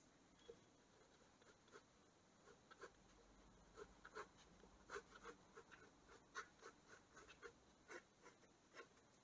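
Faint, short pencil strokes scratching on drawing paper, irregular, a few a second, as lines are sketched in.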